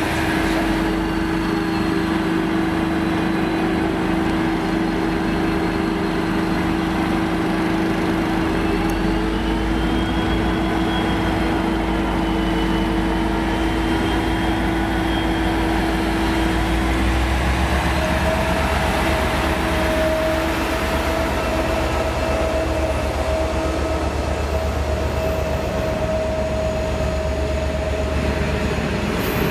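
V/Line N class diesel locomotive at a station platform, its engine running steadily with a constant hum. The deep engine rumble grows louder about a third of the way in and again a little past halfway, as a new, higher steady tone sets in.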